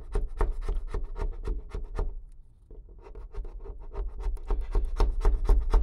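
A plastic razor blade in a handheld scraper scraping old tape off a surface: a rapid run of short, scratchy scrapes that pause briefly about two seconds in and then resume.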